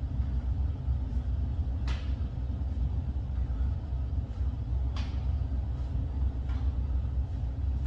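Steady low background rumble, with a few brief taps as hands and feet are placed on a yoga mat during crab-walk floor exercises, about two, five and six and a half seconds in.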